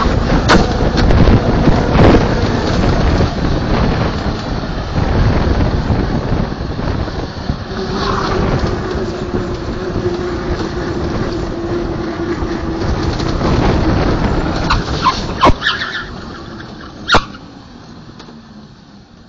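Bobsleigh runners rumbling and scraping along the ice track at speed, heard from inside the sled, with several sharp knocks as it jolts through the run. A steady hum sets in around the middle. The noise dies away over the last few seconds as the sled slows at the end of the run.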